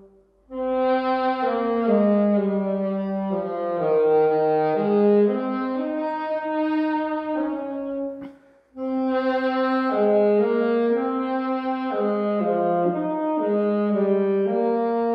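Brass ensemble playing a slow hymn in held four-part chords, phrase by phrase, with a short breath pause about eight seconds in.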